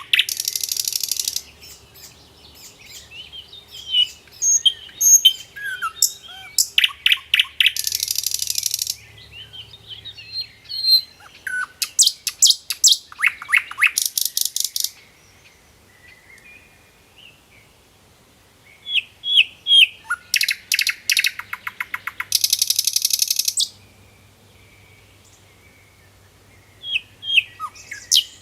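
Birds singing in repeated bouts: strings of rapid, high chirps alternating with harsh buzzy phrases. There is a short lull about halfway through.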